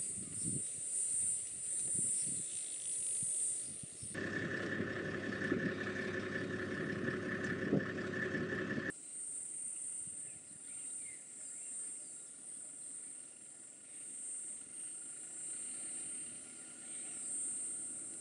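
Insects buzzing in a steady high-pitched drone. About four seconds in it cuts suddenly to a different background with a steady mid-pitched tone over a low hum, and about five seconds later the high insect drone cuts back in.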